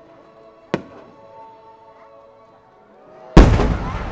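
Aerial firework shells bursting: a single sharp bang about a second in, then a much louder, deeper boom near the end that trails off slowly. Music with sustained notes plays underneath.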